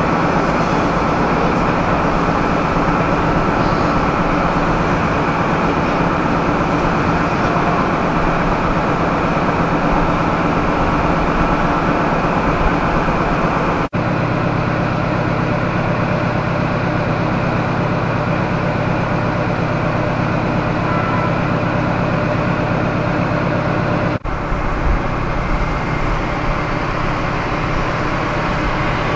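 Steady rumble of rail traffic, cut three times. The first and last parts are the running noise of a train in motion. In the middle part, an XPT passenger train's diesel power car gives a steady low hum.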